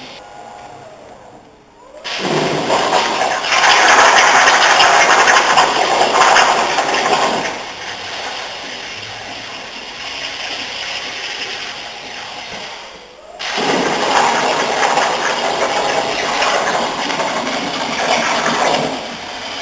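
CNC plasma cutter's torch firing and cutting: a loud, hissing rush that starts suddenly about two seconds in and eases a few seconds later. It cuts out briefly about two-thirds of the way through, then starts again and runs until just before the end.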